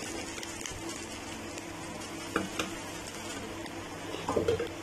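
A potato pizza crust frying on a low flame in a nonstick pan, with a steady soft sizzle. A few faint taps come at about two and a half seconds, and a short louder rustle comes near the end.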